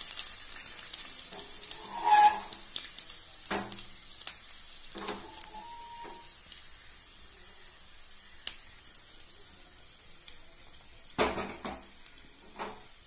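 Hot oil sizzling in a small steel pan with a tempering of mustard seeds, garlic, curry leaves and dried red chillies, crackling with scattered sharp pops and a few louder clinks, the loudest about two seconds in.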